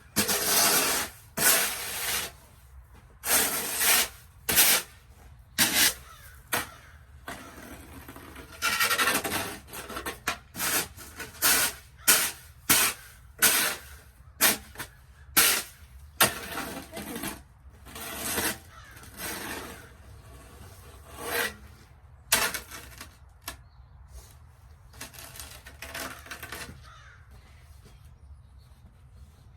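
Snow being crunched and scraped in a series of short, uneven strokes, thinning out and growing fainter near the end.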